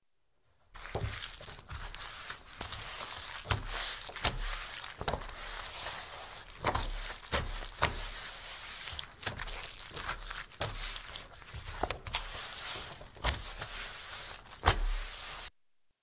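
Very wet dish towel wiped and pushed across a wooden table: a steady rubbing hiss broken by irregular soft thuds, about one a second, as the cloth is pressed down. It starts about a second in and stops abruptly shortly before the end.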